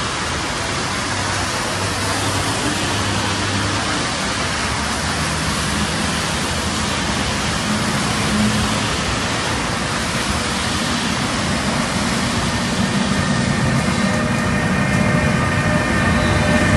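An FS Class E.402B electric locomotive approaching at low speed and drawing alongside, its electrical traction equipment humming in low steady tones over a steady hiss. Several higher whining tones come in near the end as it passes close by.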